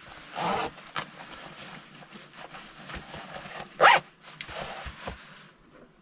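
Handling noises: clothing and objects rustling and scraping as a man moves and works with his hands. There is a rustle about half a second in, a louder short scrape or rustle about four seconds in, and a few light clicks after it.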